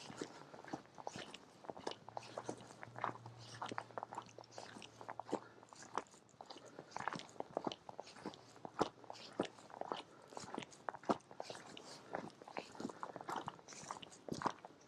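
Footsteps crunching on a trail, a steady run of irregular crunches and clicks as someone walks.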